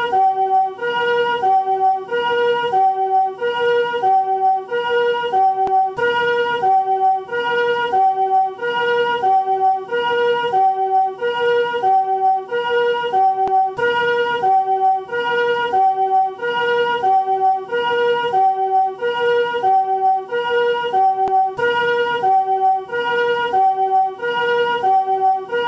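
Japanese ambulance's chord-type 'comfort' siren sounding its two-tone 'pee-poh' pattern: a chord of several steady tones alternates between a higher and a lower pitch, about one high-low cycle every second and a bit, over and over.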